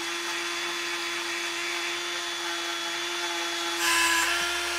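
Small high-speed electric rotary tool running with a steady whine, grinding bone; it bites in harder about four seconds in and gives a brief louder rasp.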